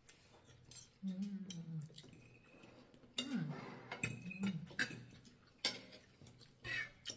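Forks and spoons clicking and scraping on ceramic dinner plates, with a few short low hums from a person's voice: one about a second in, then shorter ones around three and four and a half seconds.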